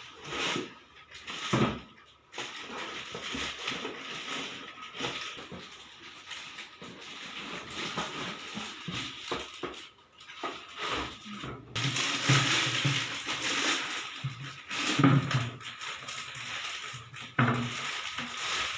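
A mixer grinder's box and packaging being handled and opened: irregular rustling, crinkling and scraping, with knocks and bumps throughout, busiest in the last third.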